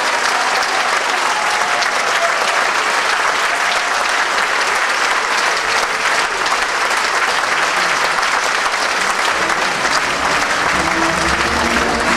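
Audience applauding steadily. Near the end, music starts up under the clapping.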